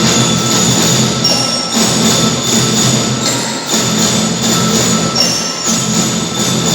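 Children's gita bahana drum band playing: bell lyres ring out a melody over steady drumming.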